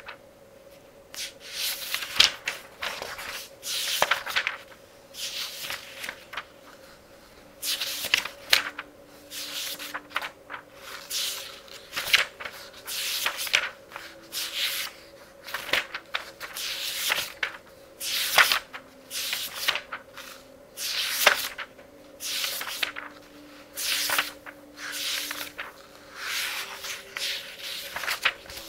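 Pages of a thick book of a couple of thousand pages being turned rapidly by hand, a papery swish with a crisp flick, about once a second.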